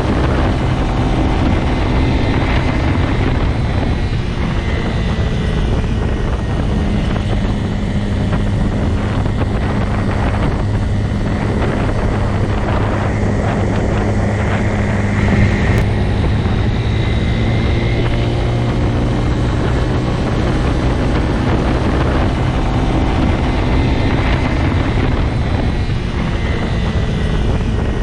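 Motorcycle engine running at a steady, even pitch, over a constant rushing noise.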